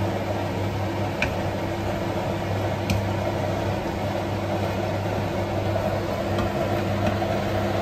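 Steady humming of a kitchen fan while vegetables and shrimp are stir-fried, with a couple of light knocks of a wooden spatula against the pan, about a second and three seconds in.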